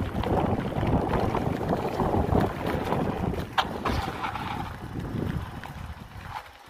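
Mountain bike riding fast down a dirt forest trail: knobby tyres rumbling over the ground, the bike rattling over small bumps, and wind on the microphone. A brief squeak a little past halfway, and the noise dies down near the end as the bike slows.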